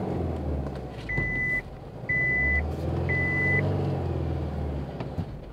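Isuzu D-Max's 3.0-litre diesel engine running at low revs, the revs rising and falling as the four-wheel-drive pickup works through slippery mud. The truck's warning chime beeps three times, about a second apart.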